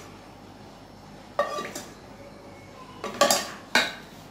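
Kitchen utensils clattering: a few sharp clinks and knocks of a wooden spatula and a steel plate against a kadhai, one about a second and a half in and a quick cluster of three near the end, some with a short metallic ring.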